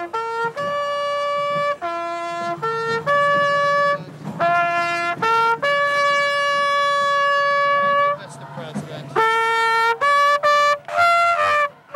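Music: a slow melody on a brass horn, one note at a time, mostly short phrases with one long note held for over two seconds in the middle.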